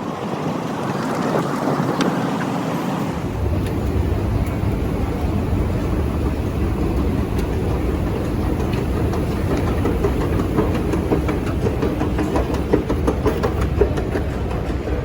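A train running on rails: a low rumble sets in about three seconds in, with rattling clicks that grow denser in the second half.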